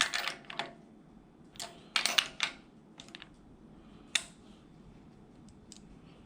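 Small metallic clicks and clinks of hand tools working on the small-block Chevy's valvetrain as the rocker-arm guide plates are nudged into line and snugged down, with a short clattery cluster about two seconds in and single taps here and there.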